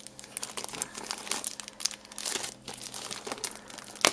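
Clear plastic bag and cellophane wrap crinkling as hands handle it, in a run of irregular crackles, with one sharp snap near the end.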